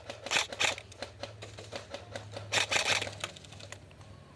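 Airsoft guns firing: rapid runs of sharp clicking shots, with two louder clusters, one about half a second in and one about two and a half seconds in.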